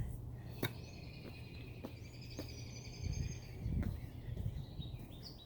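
Faint outdoor garden ambience: a high, steady trill that holds for about four seconds, with a few soft clicks early and low rumbles of handling or wind noise in the middle.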